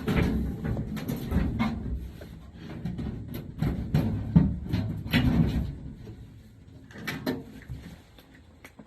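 Irregular handling noise from reassembling an air-conditioning unit: clunks, knocks and rustling of parts, loudest near the start and again around the middle, over a low rumble.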